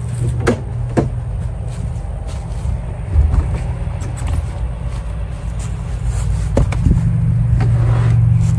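A steady low mechanical hum from a running motor, with scattered clicks and knocks over it, growing slightly louder toward the end.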